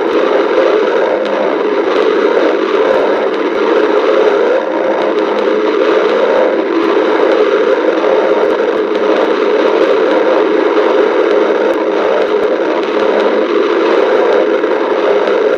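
Stomach growling: a loud, steady rumble that runs on without a break.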